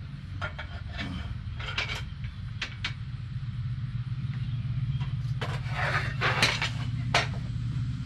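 Sliding miter saw being handled and adjusted: a run of sharp clicks, clanks and knocks of metal and plastic parts as the saw head and fittings are moved, busiest a little past the middle. A steady low hum runs underneath.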